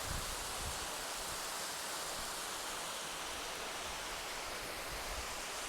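Waterfall rushing at a distance, a steady even hiss of falling water.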